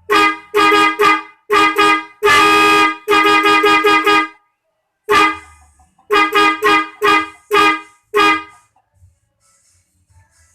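Custom multi-tone horn on a Hino RK playing a rhythmic tune of short blasts, with one longer held blast about two seconds in. It pauses briefly and starts a second run of quick blasts, then stops about two seconds before the end.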